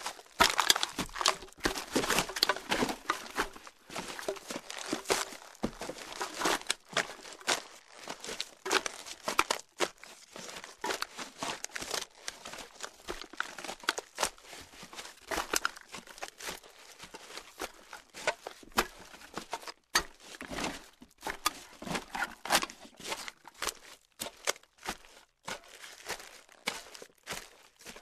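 Footsteps walking through loose garbage: a dense, irregular run of crunchy, crackling steps through trash, with the crunch and squish of the rubbish underfoot. There is a brief pause in the steps about twenty seconds in.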